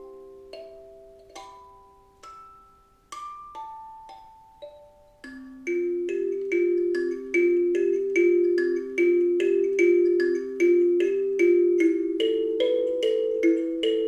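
Kalimba played solo, its plucked metal tines ringing and slowly dying away. A few slow single notes, then from about five seconds in a steady, quicker run of notes with low and high tones ringing together.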